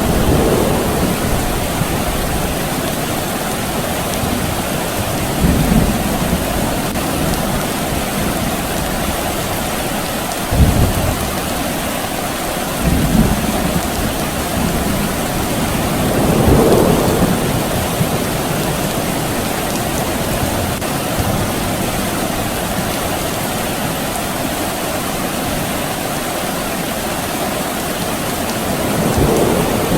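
Steady rain, with several rumbles of distant thunder rolling in and out; one sharper thunderclap about ten seconds in is the loudest.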